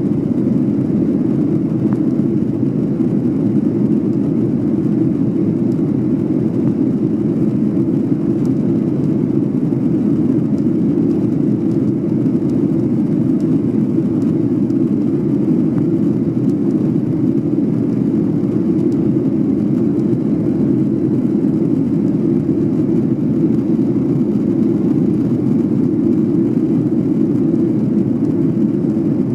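Steady low cabin roar inside a Boeing 737-800 with CFM56-7B engines: engine and airflow noise, heaviest in the low range. Faint creaking of the cabin interior ticks through it as the airframe vibrates.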